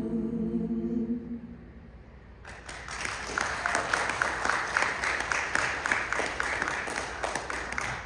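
A singer's held final note fades out about a second and a half in. About a second later an audience starts applauding and keeps on clapping.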